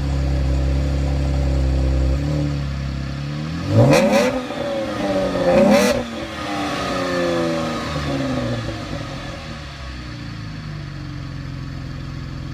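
A 2015 Chevrolet Camaro's 3.6-litre V6 heard close at the tailpipe of its stock exhaust. It runs steadily at first, is revved sharply twice, about four and six seconds in, and then the revs fall slowly back toward idle.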